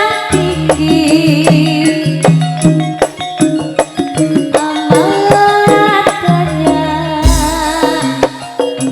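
Campursari music from a live ensemble: quick drum and percussion strokes over several pitched melody lines, with a deep bass hit about seven seconds in.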